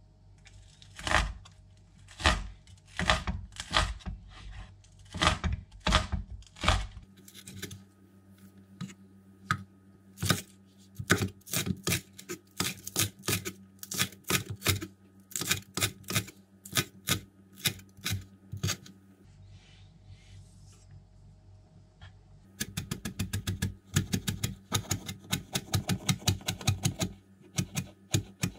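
Kitchen knife chopping spring onions on a cutting board: runs of sharp taps, slower at first, then quicker, with a short break about two-thirds through and then a fast run of chopping. A faint steady hum lies underneath.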